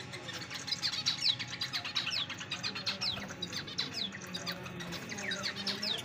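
A flock of caged budgerigars chattering: a quick, continuous stream of short, high, falling chirps from several birds at once.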